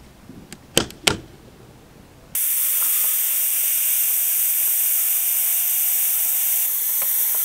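Two sharp clicks, then from about two seconds in a loud, steady hiss of compressed air venting from a caravan's air-bag suspension, let out to lower the van while levelling it.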